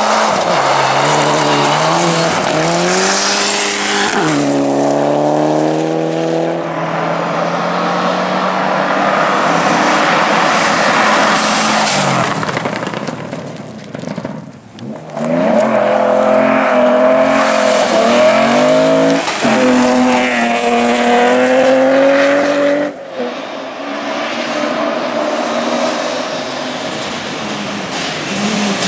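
Classic rally cars at full throttle, the engine note climbing and dropping back sharply with each gear change, over loud tyre and road noise. After a brief dip about halfway, a second run accelerates hard up through the gears, then the sound eases toward the end.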